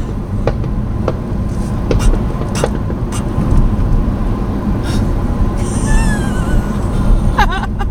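Chevrolet Corvair's air-cooled flat-six running with a steady low rumble, broken by irregular sharp exhaust pops every half-second or so: the engine is misfiring, which the owner puts down to poor ignition advance.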